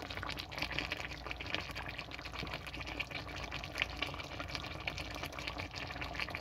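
Pigeon curry gravy simmering in a frying pan, a steady bubbling with many small irregular pops and ticks.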